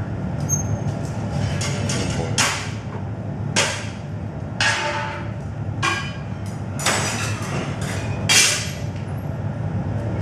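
Metal glassblowing tools and the iron rod knocking against the steel-edged workbench while hot glass is shaped, about six sharp clanks a second or so apart. A steady low rumble sits underneath.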